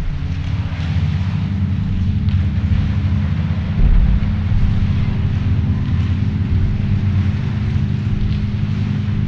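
Steady low rumbling drone with a hum of several low tones, with one deep thud about four seconds in.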